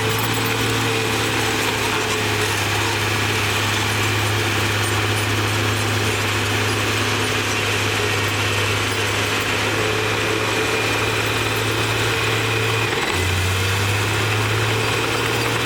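Diesel engine of a Komatsu D58E crawler bulldozer running steadily, with a short change in its note about thirteen seconds in.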